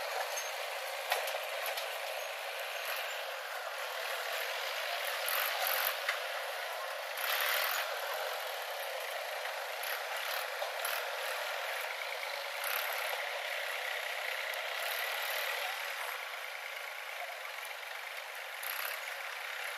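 JCB backhoe loader running as it works its front loader bucket through dirt: a steady engine and machinery noise with occasional short knocks. It sounds thin, with no bass at all.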